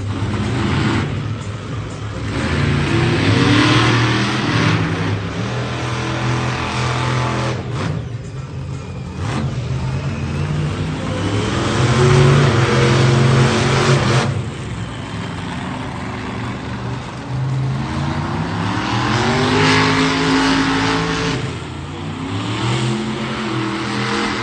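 Monster truck engine revving in repeated surges, its pitch climbing and dropping several times.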